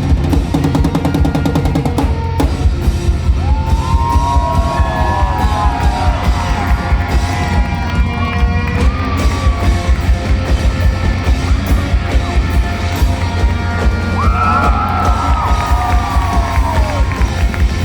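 Live rock drum solo on a drum kit, played hard over a fast, steady bass-drum pulse. Gliding high tones rise and fall above the drums, near the middle and again near the end.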